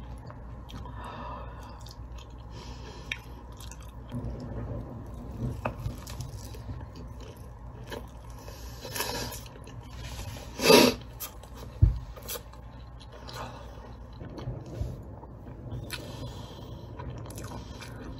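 A person chewing a mouthful of triangle kimbap close to the microphone: small irregular chewing and crunching noises. About halfway through there is one much louder short burst, followed by a sharp click.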